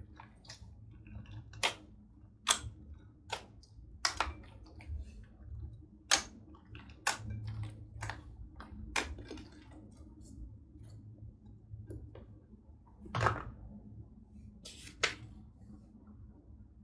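Sticky green glitter slime being kneaded and pressed by hand, giving irregular sharp pops and clicks, roughly one or two a second, with one louder pop near the end.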